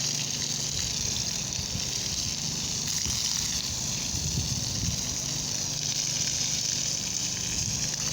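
Steady rushing of running water, with a low motor hum underneath.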